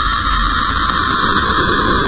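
A steady, hissing space-sound drone: a sonification of Saturn, probe measurements turned into audible sound, presented as the sound of the planet. It is a dense noise centred in the mid range with a low rumble beneath, unbroken throughout.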